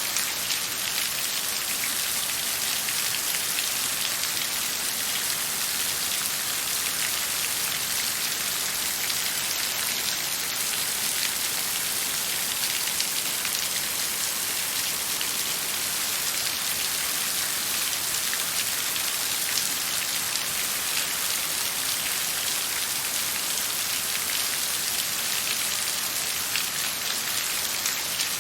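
Steady rain falling, a dense even hiss of many drops with fine pattering ticks. No thunder.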